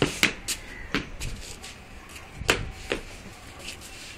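Sharp knocks on a hard concrete floor: three in quick succession at the start, one about a second in, then two more a half second apart near the middle.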